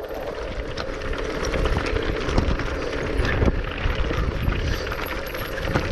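Mountain bike rolling down a loose stony track: tyres crunching over rocks, with a steady low rumble and many short clicks and rattles from the bike over the bumps.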